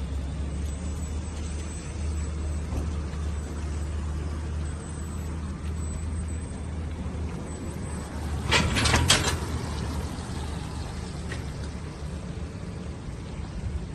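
Homemade electric platform trolley driving along under power: a steady low hum, with a short burst of clattering hiss about nine seconds in.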